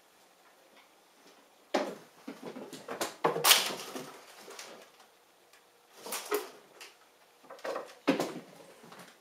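Blue point Siamese kitten meowing several times in short, loud cries while it hunts a fly.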